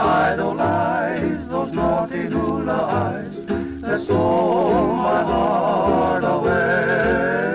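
A song playing as background music: a melody of held, strongly wavering notes over a pulsing bass line.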